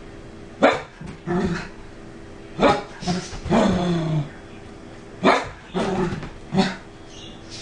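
Miniature poodle barking and growling in play during a burst of zoomies: four sharp barks, each followed by a longer growly grumble that falls in pitch.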